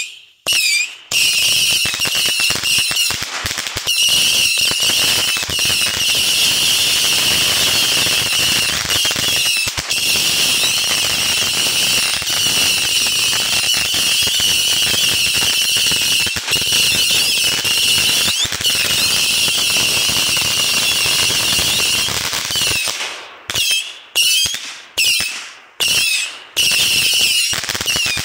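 Saturn missile batteries firing hundreds of small whistling rockets in rapid succession. The whistles merge into one continuous shrill whistle, peppered with pops. In the last few seconds it thins out to separate whistles with gaps between them.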